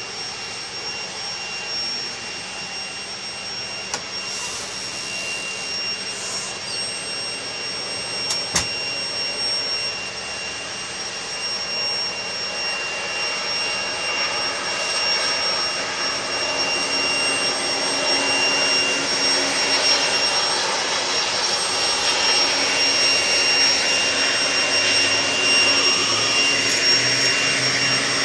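Leaf blower running steadily with a high whine, growing louder from about halfway through.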